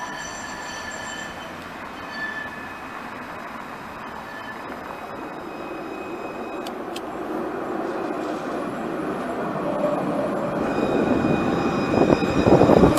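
Bordeaux tram, a low-floor Alstom Citadis, running on its rails toward the camera and passing close by, with thin high squealing tones from the wheels on the curved track. Its running noise grows steadily louder and peaks just before the end as the car goes past, with two sharp clicks about seven seconds in.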